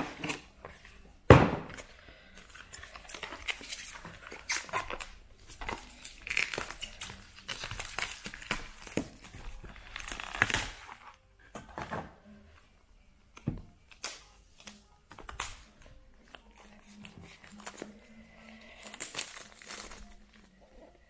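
Unboxing handling noise: cardboard packaging knocked about with one loud thunk about a second in, then clear plastic wrap being peeled off an Apple Pencil box, crinkling and rustling in short bursts.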